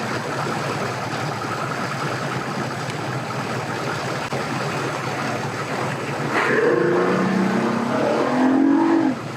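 An engine running under steady background noise, then revving up louder for about three seconds near the end before dropping off suddenly.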